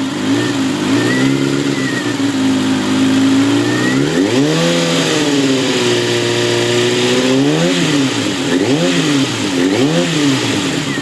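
Kawasaki ZX-6R's inline-four engine idling, then revved: a longer rev held for a few seconds about four seconds in, then three quick throttle blips near the end.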